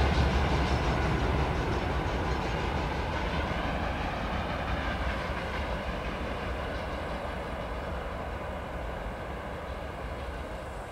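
Train rolling past on the track and fading steadily as it moves away.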